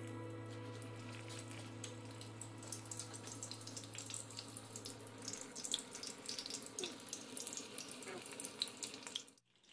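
Battered shrimp deep-frying in hot oil, a steady sizzle full of small crackles and pops. The sound drops out briefly near the end.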